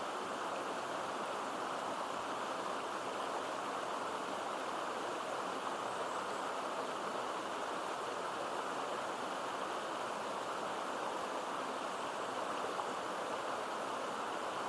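Stream water falling and running into a deep pool: a steady, even rush of water with no breaks.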